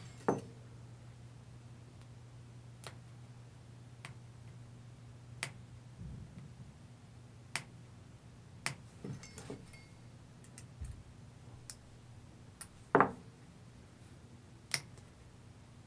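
Sparse small metal clicks and taps as the extractor is worked out of an AR-15 bolt carrier group by hand, with a louder knock about thirteen seconds in. A steady low hum runs underneath.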